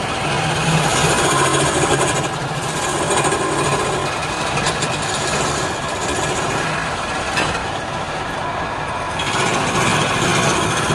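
Wood lathe running with a turning tool cutting the spinning wood: a steady motor hum under a scraping, rasping noise that swells and eases as the cut goes on.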